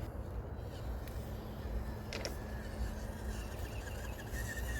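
Mini RC crawler's small electric motor and gears whining faintly and steadily as it works up a steep climb, over a low rumble. There is a single click about two seconds in.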